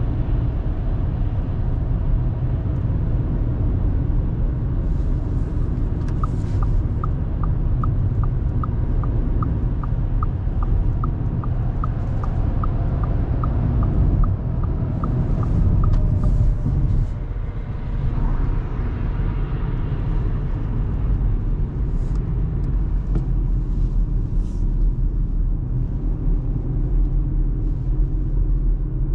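Steady road and engine rumble from a 2024 Audi A3 Sportback 1.5 TFSI, a four-cylinder turbo petrol, cruising on the motorway. From about six seconds in, the turn-signal indicator ticks evenly, about two and a half clicks a second, for roughly ten seconds.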